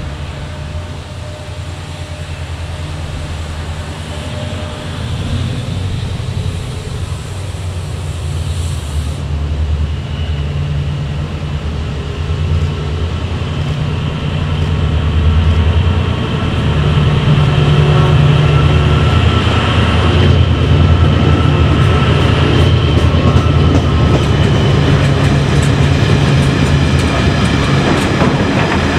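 Two Class 68 diesel locomotives, with Caterpillar V16 engines, working towards the platform. Their engines grow steadily louder for the first fifteen seconds or so. From about twenty seconds in, the wagons behind them pass, their wheels clattering over the rail joints.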